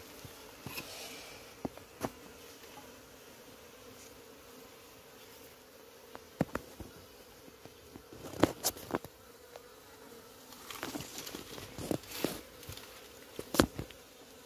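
Honeybees humming steadily around honeycomb that is being handled, with sharp knocks and clicks from the comb and a wooden hive frame, loudest about eight seconds in and again near the end.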